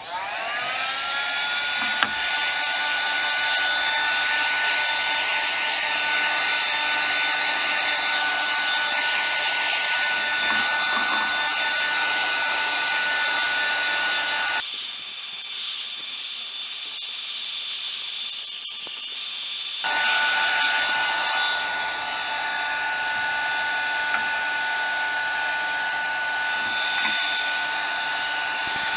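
A small electric motor spins up and runs steadily with a whine over a rush of air or hiss. For about five seconds in the middle the sound abruptly turns thinner and higher before returning to the first steady whine.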